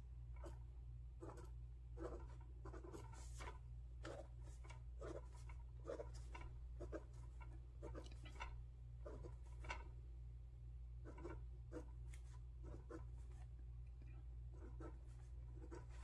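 Pilot Juice gel pen writing numbers on lined spiral-notebook paper: faint, irregular scratches and taps of the pen strokes, over a steady low hum.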